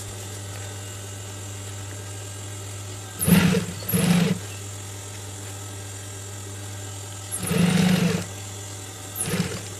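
Industrial sewing machine with its motor humming steadily, running in four short bursts of stitching, the third about a second long, as fabric is fed through.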